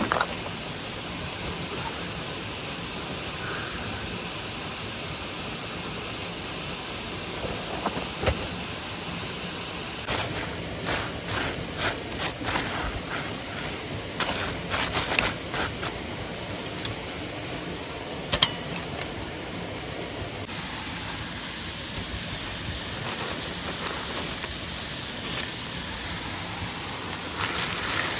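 Steady rush of a mountain stream and waterfall, with scattered sharp clicks and knocks over it, a run of them between about ten and sixteen seconds in and another cluster near the end.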